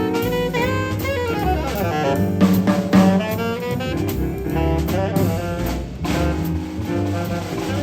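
Jazz quintet playing a bebop blues: a melodic horn line over bass and drum kit.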